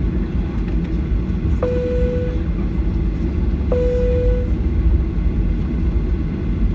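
Steady low cabin rumble inside a Boeing 737-800 before takeoff. About one and a half seconds in, and again two seconds later, a short identical mid-pitched tone sounds, each one starting with a click.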